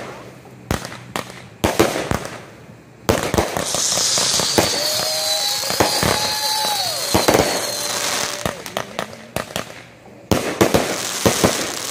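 Consumer fireworks going off: a string of sharp bangs and crackles throughout. In the middle, a fountain gives a few seconds of dense hissing spray, and a high whistle over it slowly falls in pitch.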